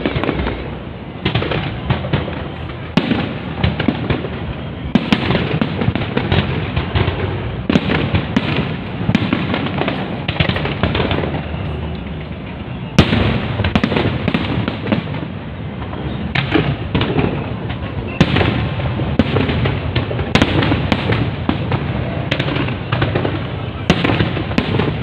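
Fireworks display: shells bursting in a dense, continuous barrage of sharp bangs and crackle, with an especially loud bang about halfway through.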